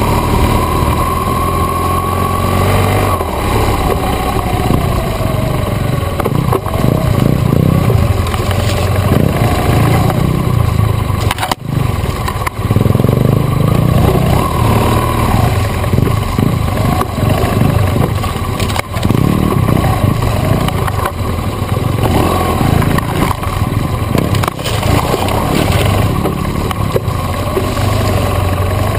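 BMW GS adventure motorcycle's engine running while it is ridden on a rough trail, the note rising and falling with the throttle. There is a brief drop in engine sound about 11 seconds in.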